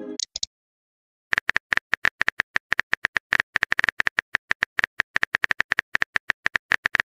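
Typing sound effect of a chat app's keyboard: quick, irregular clicks, one per letter, as a message is typed out. It begins about a second in, after the tail of an incoming-message chime fades.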